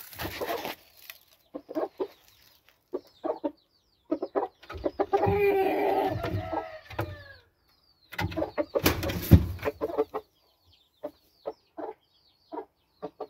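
Game chickens clucking in short calls over and over, with a longer drawn-out call about four to seven seconds in. About eight seconds in there is a louder noisy stretch lasting some two seconds.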